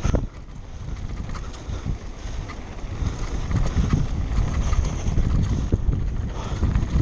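Wind buffeting the microphone during a fast downhill run, with irregular knocks and rattles from riding over rough ground and a sharp jolt right at the start.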